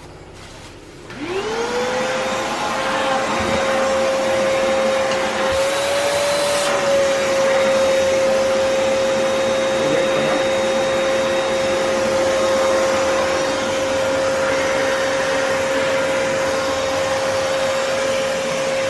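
Vo.Temm handheld vacuum cleaner switched on about a second in. Its motor whines up to speed, then runs steadily with a high hum and a suction hiss. The pitch rises briefly around six seconds in.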